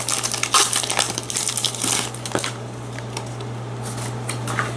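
Foil wrapper of a Pokémon trading-card booster pack crinkling and crackling as it is torn open and handled, busiest in the first two seconds or so, then a few scattered crackles, over a steady low hum.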